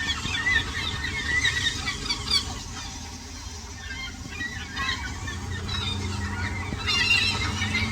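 A flock of birds calling at once, with many short, overlapping calls. A low hum grows under them in the last few seconds.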